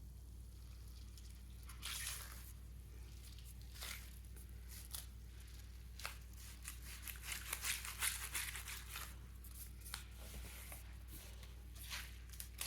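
Orbeez-filled balloon stress ball squeezed and kneaded in the hand: faint squishing and soft crackles from the water beads shifting in the rubber, busier a little past the middle.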